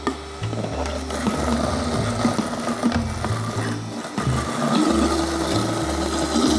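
Stainless steel Vitamix blender running with a steady motor whine on a very thick frozen banana-and-pineapple mix that has stopped turning over: the blades spin in an air pocket under the stalled mix.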